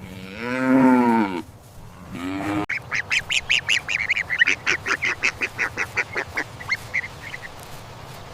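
Farm geese calling: one long honk about half a second in, a shorter one near two seconds, then a quick run of short, high honks, about four a second, that fades out.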